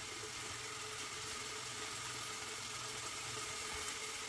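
Shrimp simmering in a thin sauce in a wok: a steady, quiet sizzle with a low hum underneath.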